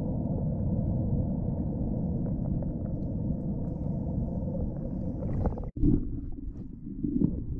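Muffled underwater rumble of moving sea water, heard through a submerged camera, with a few faint clicks. About three-quarters of the way through it cuts out abruptly and comes back lumpier, with uneven thumps and knocks.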